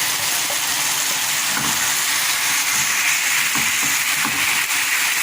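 Chicken pieces with onion and bell pepper frying in butter and oil in a pan, giving a steady sizzle.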